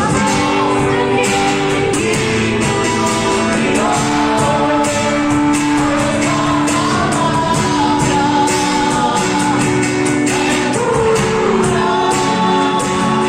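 Church worship team singing a Portuguese-language gospel song with a live band: held, wavering vocal lines over sustained chords and a steady drum beat, with a large-hall echo.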